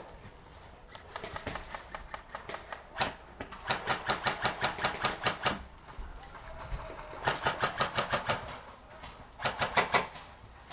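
Airsoft gun firing: a single shot, then three quick strings of shots at about six a second.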